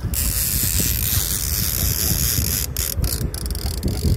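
A hooked salmon splashing at the surface beside the boat under a steady rush of wind noise, which cuts off about two and a half seconds in. Then come a few sharp clicks and a quick run of fine ticks.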